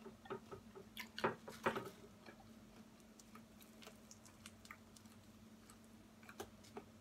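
Close-up eating sounds: fried chicken being chewed and pulled apart by hand, heard as scattered small clicks and squishes, the loudest few between one and two seconds in, over a faint steady hum.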